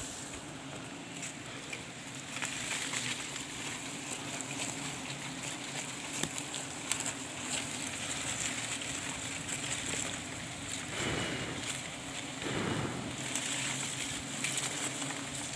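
Swarm of wild honeybees buzzing around their exposed honeycomb, a steady low hum, under a steady high-pitched drone. Scattered clicks, and brief rustling and scraping around 11 and 12 seconds in as the comb and leaves are handled.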